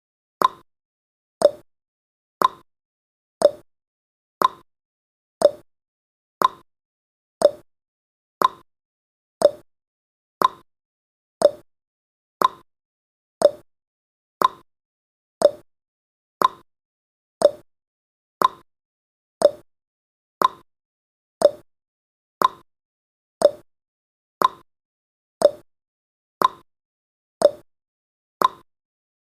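Countdown timer sound effect: a short, sharp click once every second, evenly spaced, each dying away quickly.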